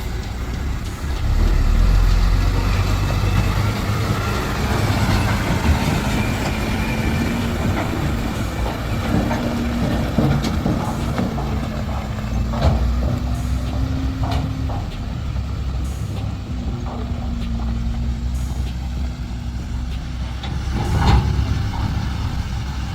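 Heavy diesel earthmoving machinery, a large excavator working with dump trucks, running steadily under load with a low rumble and a wavering engine hum. A few sharp knocks and clanks come through, the loudest near the end.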